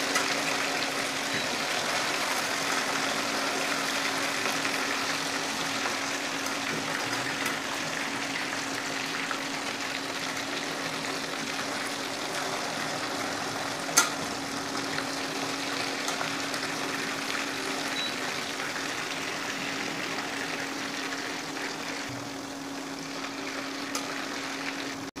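Chicken pieces deep-frying in hot oil in a steel pan: a steady sizzle and bubbling, with a steady low hum underneath. A single sharp tap about fourteen seconds in.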